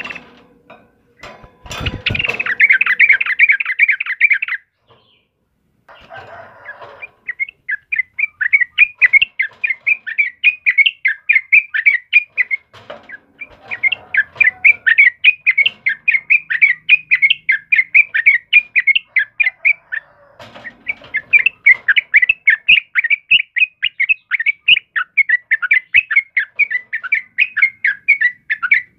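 Yellow-vented bulbul (trucukan) singing in long runs of rapid, repeated chirps, about four or five a second, with short breaks. There is a low thump about two seconds in.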